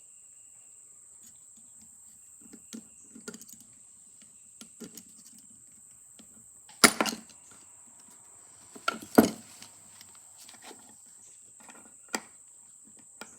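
Tools and small metal parts of a phonograph governor clinking and knocking during disassembly, with scattered light clicks and two sharp knocks about seven and nine seconds in.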